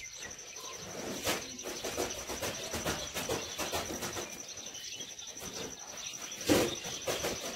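A steady, high insect trill, pulsing rapidly, under scattered crackly clicks and rustles of small onions being peeled by hand, with one sharper knock about six and a half seconds in.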